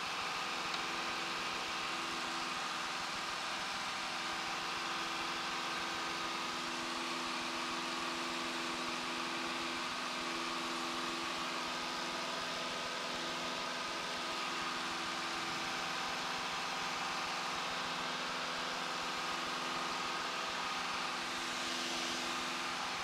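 Steady drone of a single-engine light training aircraft's piston engine and propeller in cruise-climb, heard from inside the cabin, with a constant hum over airflow noise.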